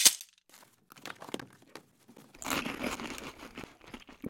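A sharp click, then a few seconds of crinkling and crackling, densest around the middle, cutting in and out abruptly.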